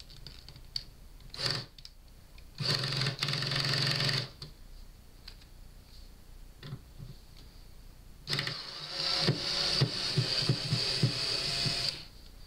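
Cordless power screwdriver running in two bursts, about a second and a half and then three and a half seconds long, backing screws out of the speaker cabinet; the second burst has a run of clicks through it.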